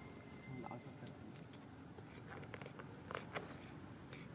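Faint outdoor ambience: scattered soft clicks and a short, high rising chirp repeating about every second and a half.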